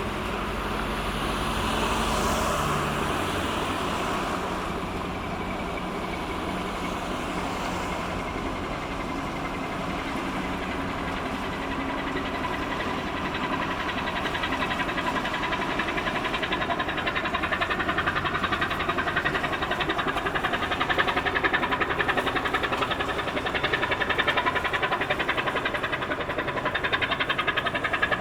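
Diesel engine of a small cargo ship passing through the strait, a steady low chugging with a fast, even beat that grows louder over the second half as the ship draws nearer.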